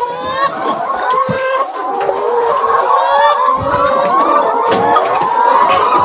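A large flock of brown laying hens clucking and calling, many voices overlapping in a steady chorus, with a few short rising calls standing out.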